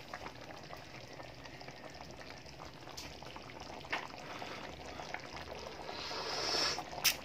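Chicken curry in coconut-milk sauce simmering in an aluminium pan, with soft, faint bubbling and crackling and a few light clicks. Near the end a hiss rises, followed by a sharp click.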